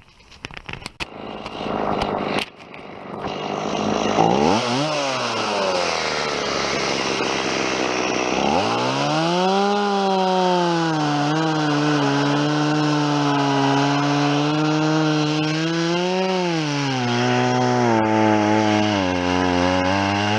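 A few sharp knocks, then a small chainsaw starts about three seconds in and revs up and back down. From about eight seconds it runs at high revs, its pitch sagging and recovering a couple of times as it cuts wood.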